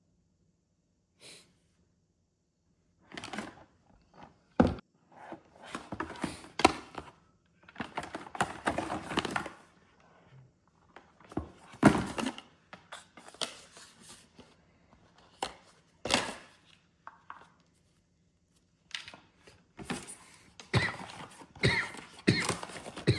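Packaging and camera-kit parts being handled: irregular knocks and thuds mixed with rustling, with sharper knocks about 4.5, 12 and 16 seconds in.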